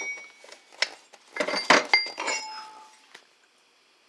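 Pieces of metal clinking and knocking together as they are handled, several sharp clinks in the first three seconds, some leaving a short ringing tone.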